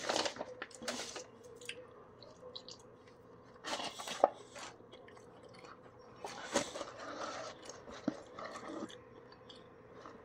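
A person chewing grilled chicken close to the microphone, in scattered short spells of wet, clicky mouth noise, mixed with small handling rustles as the chicken is lifted in a cardboard takeaway box.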